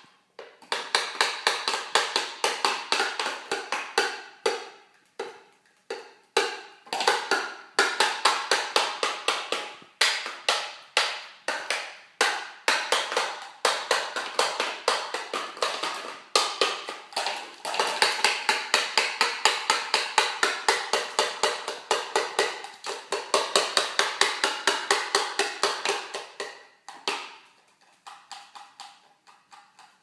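Cockatoo rapidly pecking its beak against hard surfaces, the plastic stacking cups and the floor, like a woodpecker drumming. Long runs of quick taps, about eight a second, with short breaks, growing softer and sparser near the end.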